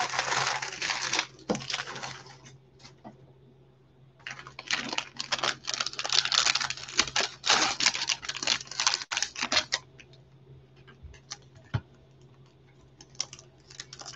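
A cardboard trading-card box and a card-pack wrapper being torn open and handled with gloved hands: dense crackling and crinkling in the first two seconds and again from about four and a half to ten seconds in, then only a few scattered ticks.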